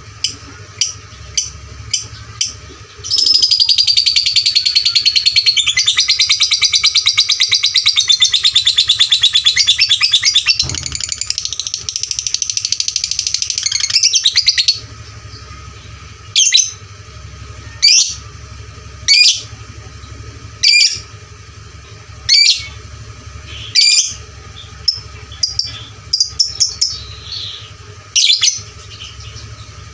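Lovebird singing. A few short chirps give way to a long, unbroken, rapid chattering trill of about eleven seconds, which then breaks into single sharp calls roughly every second and a half.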